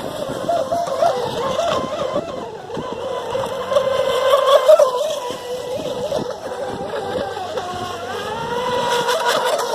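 Electric motors of 3S LiPo-powered RC racing boats whining as they run the course, the pitch wavering up and down with throttle and distance.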